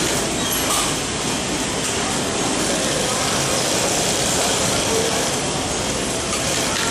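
Industrial flatbed sewing machine running steadily, stitching through stacked kraft-paper pattern pieces.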